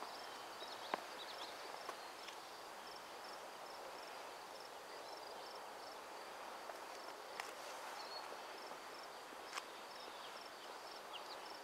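Faint rural outdoor ambience: a steady, evenly repeated high-pitched chirping like an insect, with a few faint ticks scattered through it.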